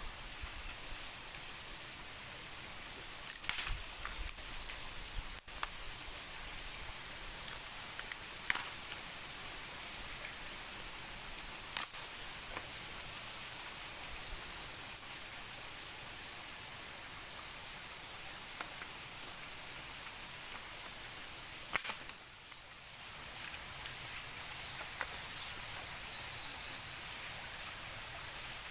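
Steady high-pitched insect chorus in the forest, unbroken throughout, with a few faint scattered ticks.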